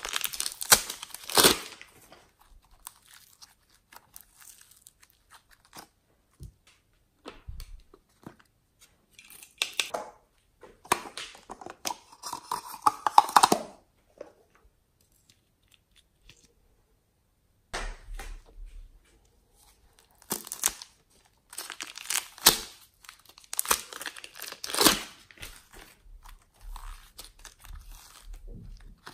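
Hands squeezing, pulling and stretching soft modelling clay and slime, making sticky crackling and tearing sounds in bursts, with a quiet pause around the middle.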